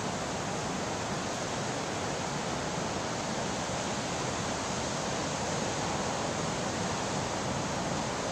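Ocean surf breaking on a sand beach, heard as a steady, even wash of noise.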